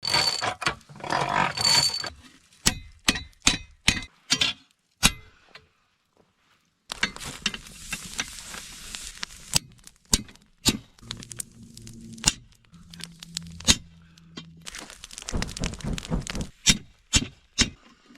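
Hammer striking steel during knife forging: runs of sharp, unevenly spaced metallic blows, with a ringing note in the first two seconds and a few seconds of steady noise between the runs.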